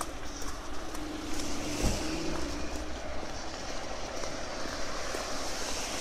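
Steady outdoor street noise of passing road traffic, with one dull low thump about two seconds in.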